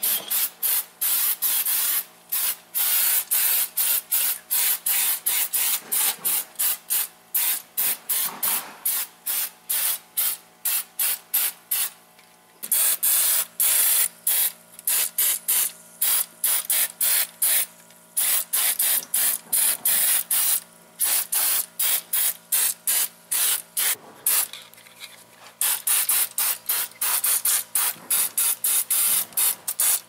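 Aerosol rust-protection spray hissing out of the can in rapid short bursts, about two or three a second. Twice it runs as a longer unbroken spray of a second or so, about halfway and near the end.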